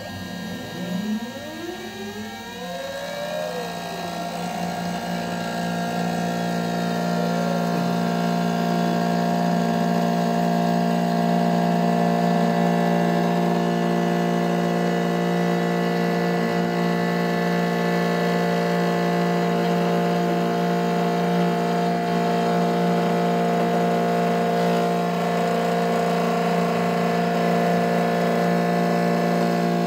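Desktop five-axis CNC mill running, its spindle and axis stepper motors whining as an end mill chamfers the edge of a bore in an aluminium part while the rotary axes turn. In the first few seconds several pitches glide up and down as the axes move, then the whine settles into a steady layered tone and grows louder.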